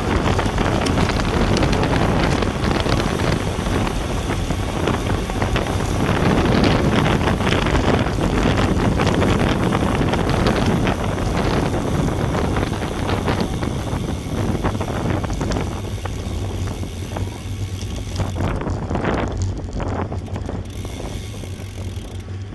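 Wind buffeting a bicycle-mounted action camera at racing speed, mixed with tyre and road noise. The rush eases and grows quieter over the last few seconds.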